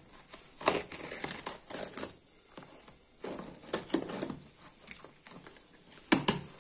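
Knife slitting the packing tape on a cardboard shipping box, then the box being handled: irregular scraping and crinkling of cardboard and tape, with a few sharp knocks, the loudest near the end.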